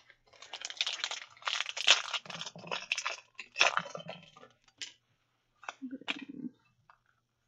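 Foil booster-pack wrapper being torn open and crinkled in the hands: a dense crackling for about four seconds, then a few lighter crinkles near the end.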